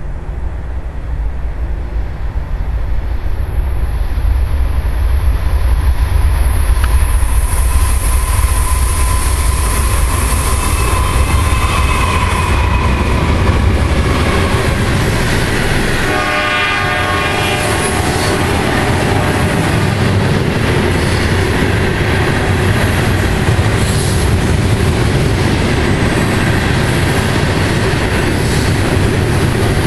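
Two GE diesel locomotives, a CSX C40-8W and a C40-8, approaching and passing with a deep engine rumble that grows louder over the first several seconds. A brief high pitched tone sounds about sixteen seconds in, and then loaded hopper cars roll by with a steady rail clatter.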